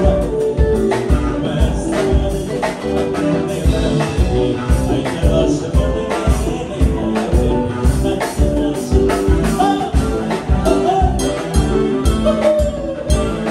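Ethiopian pop song with a steady beat of about two a second under sustained instrument notes, and a man's singing voice heard over it, most clearly in the second half.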